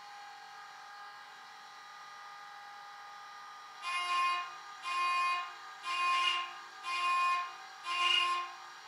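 DCC sound decoder in a Hornby Class 67 model locomotive playing recorded locomotive sounds through two small speakers in its fuel tanks. A steady electrical hum runs throughout. About four seconds in, five evenly spaced beeps sound, about one a second.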